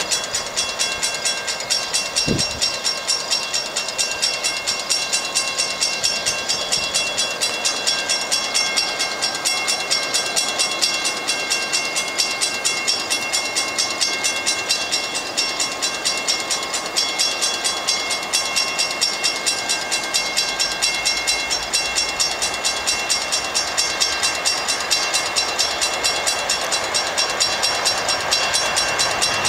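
Railroad grade-crossing bell ringing in a steady, even rhythm of about three strikes a second. A commuter train's approach grows louder under it toward the end.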